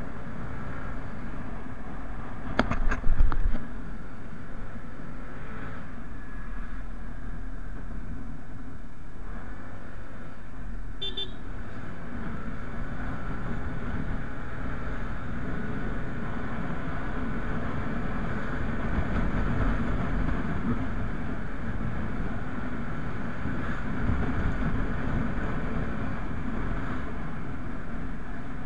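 Motorcycle riding along a road: a steady mix of engine and wind noise. About three seconds in there is a loud clattering knock, and around eleven seconds in a short horn beep.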